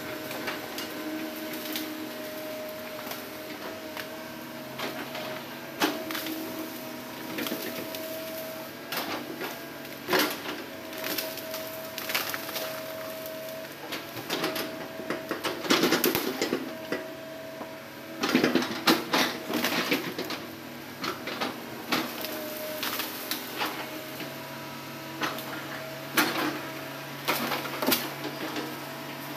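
Hitachi hydraulic excavator running with a steady engine and hydraulic drone while its bucket works among felled logs and branches, giving repeated knocks and clatters. The heaviest clatter comes about halfway through.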